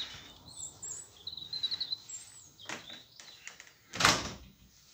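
Faint bird chirps, warbling high up for a couple of seconds, then a short burst of noise about four seconds in.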